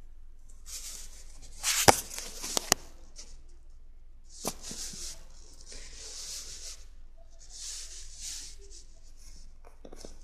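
Paper rustling and handling noise in short hissing bursts, with a few sharp clicks about two seconds in and again near four and a half seconds.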